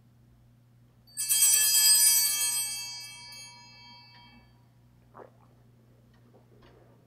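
Altar bells (a cluster of small Sanctus bells) shaken once, ringing out brightly and fading away over about three seconds.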